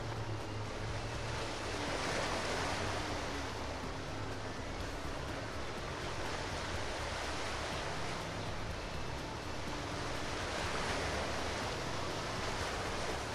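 Steady rushing noise of water and wind, with a low steady hum underneath.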